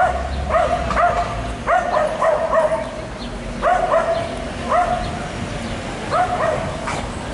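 A dog yelping over and over in short, high cries, often in pairs.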